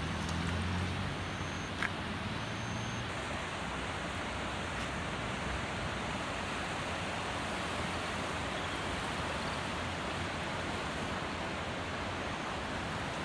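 Steady rushing noise of a flooding river's water, with a low hum that fades out about three seconds in.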